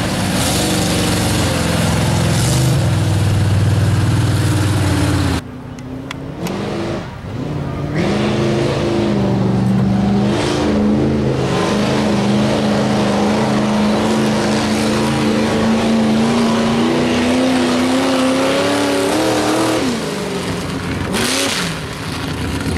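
Lifted mega mud trucks' engines running hard and revving, the pitch rising and falling as they drive through the mud pit. The sound cuts off abruptly about five seconds in and changes again near the end, as the clips change.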